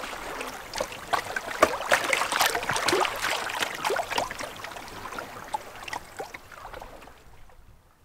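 Swift river water burbling and lapping close around a moving canoe, with a constant patter of small splashes; it fades away near the end.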